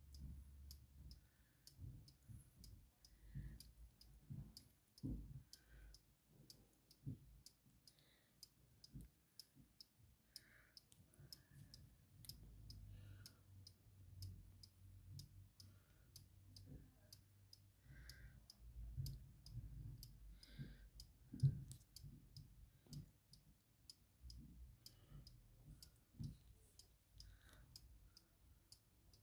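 Faint, steady, evenly spaced ticking of a Dutch-style weight-driven wall clock with brass pillars and hanging chains, running. A low rumble underneath, and one louder knock about two-thirds of the way through.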